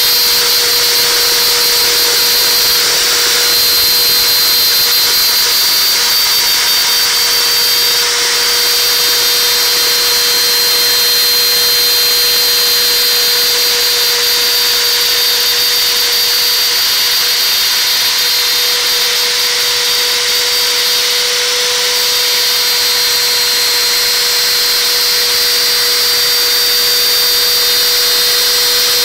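Router spindle on a homemade CNC router running at speed while its small bit mills a groove in a plastic sheet. It gives a steady high-pitched whine over a hiss of cutting, with only brief small dips in the whine.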